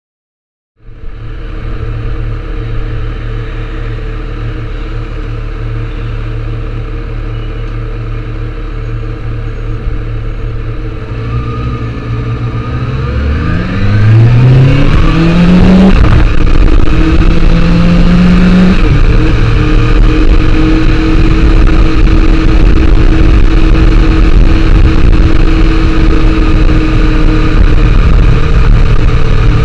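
Kawasaki Ninja ZX-6R's inline-four engine idling, then pulling away about halfway through, rising in pitch with two upshifts before settling into a steady cruise. Once moving, loud wind rush on the tank-mounted camera's microphone.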